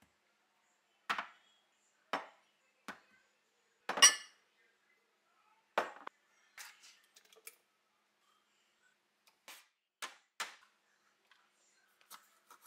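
Food and kitchenware set down one at a time on a marble countertop: about a dozen separate knocks and clinks, the loudest a ringing clink about four seconds in.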